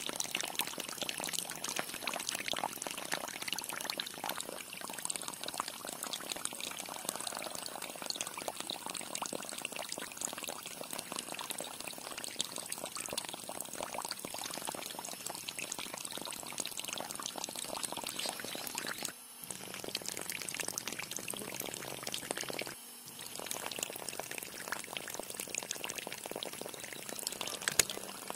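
Water pouring from a small plastic tube and splashing onto plastic toy vehicles, a steady splashing broken twice by short pauses about two-thirds of the way through.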